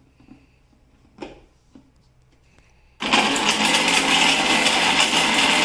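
A few faint knocks, then about three seconds in an electric mixer grinder switches on abruptly and runs loudly and steadily, grinding the coarse leftover pieces of dry chai masala spices.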